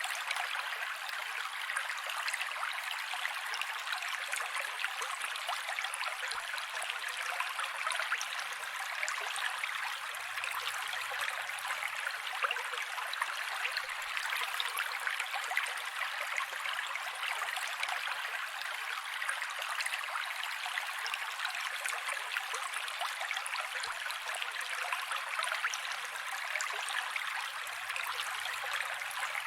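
Mountain creek flowing steadily: an even, unbroken rush of water with no low rumble in it.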